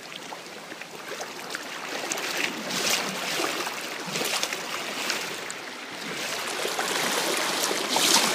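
Fast-flowing floodwater rushing and sloshing around a person wading knee-deep, with splashes from their steps; the loudest splash comes near the end.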